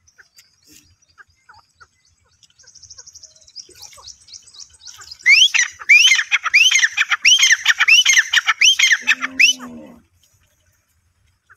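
Grey francolin calling. A run of faint, quick, high clicking notes builds into a loud series of about eight ringing, rising notes, roughly two a second, which then stops. A short, low animal call sounds under the last notes.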